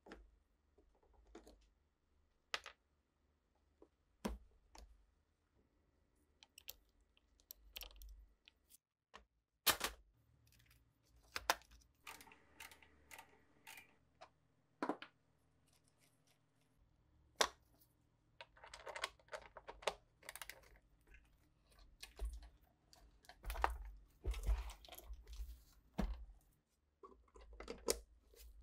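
Scattered clicks, knocks and short rattles of hand tools on metal fittings as an old Philips tape recorder's wooden cabinet is taken apart: a knob pulled off, a small ratchet wrench turning a nut, and an adjustable wrench loosening a speaker bracket.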